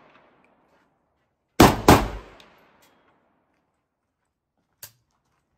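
Two shots from a Kalashnikov assault rifle in quick succession, about a third of a second apart, each trailing off in echo. A short sharp click follows near the end.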